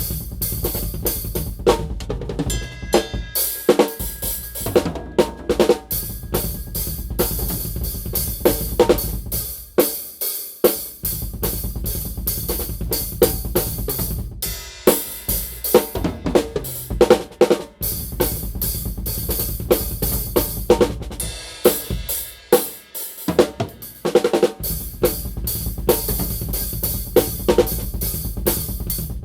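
Full drum kit played in a small, untreated storage room: kick, snare, hi-hat and cymbals in a continuous, busy groove with fills. The kick and low end drop out briefly several times, most noticeably for about two seconds near the end.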